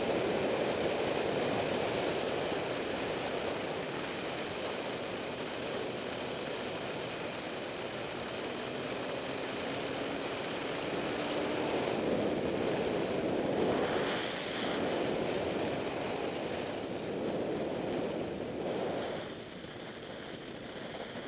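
Steady rush of road and wind noise from a moving vehicle, with a brief louder hiss about two-thirds of the way through; the noise eases near the end.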